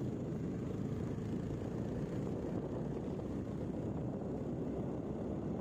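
A vehicle running along a rough road: a steady low rumble of engine and road noise with no sudden events.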